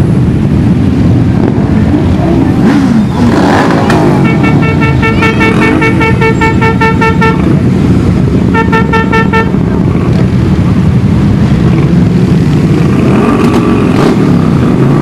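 A procession of motorcycles riding slowly past, engines running and revving up and down. A horn sounds in a rapid string of short beeps from about four seconds in for some three seconds, and again briefly near the middle.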